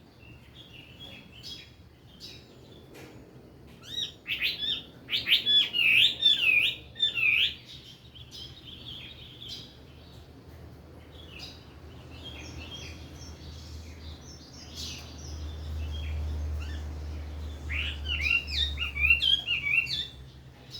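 Chinese hwamei singing: two loud bursts of rapid, looping whistled phrases, with softer chirping notes between them.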